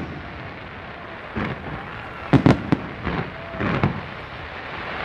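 Fireworks going off: a single bang about a second and a half in, then a quick cluster of bangs and crackles about halfway through, and another group shortly after.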